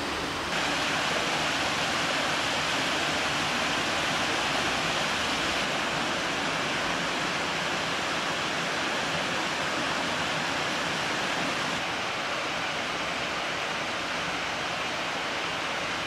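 Nomizo Falls, a small waterfall cascading over rock steps into a pool: a steady rush of splashing water that gets slightly louder about half a second in.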